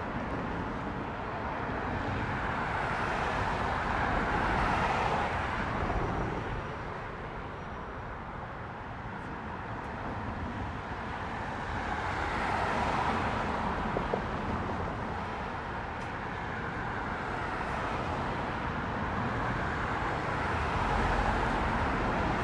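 Road traffic noise: a steady rush of passing cars that swells and fades three times.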